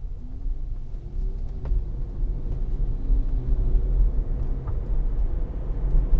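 Low road and tyre rumble inside a Tesla Model Y's cabin, growing louder as the electric car accelerates away from a green light.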